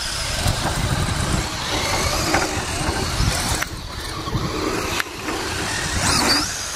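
Electric RC cars' brushless motors whining as they are driven hard up a sand dune. Near the end one motor revs up and back down.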